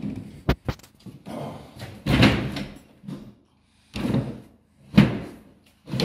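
Half a dozen irregular knocks and bangs with short echoes in the room, the sharpest about five seconds in.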